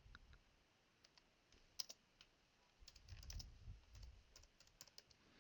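Faint, scattered clicks from a computer keyboard and mouse, a dozen or so irregular taps, one a little louder about two seconds in.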